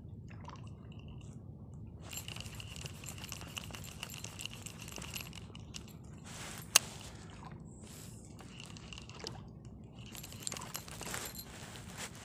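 Small spinning reel and rod being worked during micro jigging: faint crackly handling noise over a steady low rumble, a thin faint whine for a few seconds, and one sharp click about seven seconds in.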